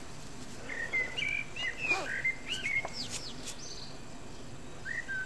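Songbirds singing: a run of short whistled notes and chirps, some sliding up and down in pitch, for a couple of seconds, then another whistled phrase near the end.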